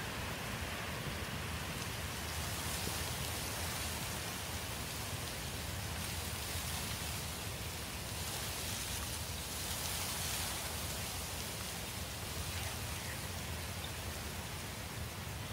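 Ambient soundscape of steady rain-like hiss, swelling gently now and then.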